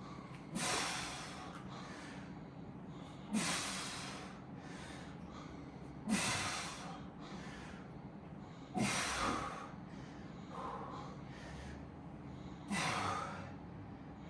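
A person's forceful, snorting breaths through the nose during a heavy set of one-arm dumbbell rows: five sharp exhales about every three seconds, one with each straining rep.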